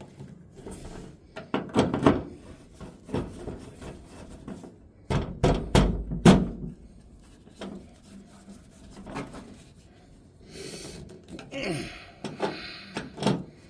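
Irregular clicks, knocks and thumps of hand tools and metal parts being handled during work on a truck tailgate latch, with a few heavier thumps about five to six seconds in and a stretch of rustling near the end.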